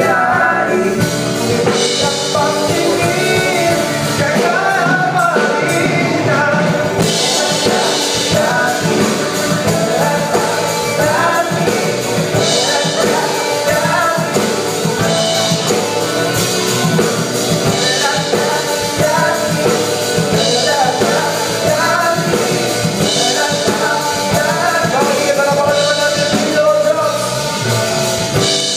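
A live band playing a pop-rock song: a lead singer over acoustic and electric guitars, bass guitar and a drum kit.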